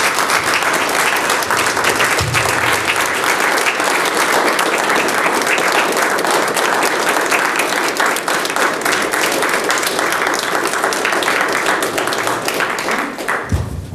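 Audience applauding steadily at the close of a lecture, dying away near the end.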